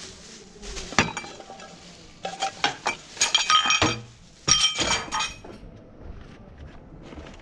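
Saucepans and other kitchenware clinking and clattering against each other as they are rummaged through, in four bursts of ringing metallic knocks.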